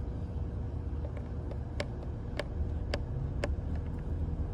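A thin wire jabbed into the clogged bore of a small brass primer-hose fitting off a Johnson/Evinrude outboard, giving a few sharp little clicks, four louder ones about half a second apart, over a steady low background rumble.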